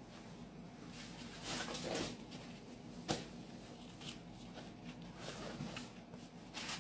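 Quiet rustling and rubbing of fabric being handled and laid out on a cutting mat, with a single sharp tap about three seconds in.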